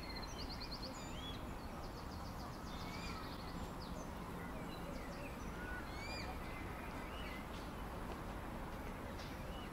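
Steady low outdoor background noise with small birds chirping and trilling now and then, including a quick trill right at the start.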